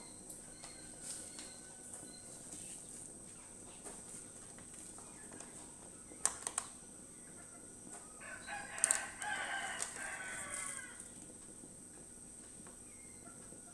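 A rooster crows once in the background, one call of about two and a half seconds starting about eight seconds in. A little earlier come two sharp clicks.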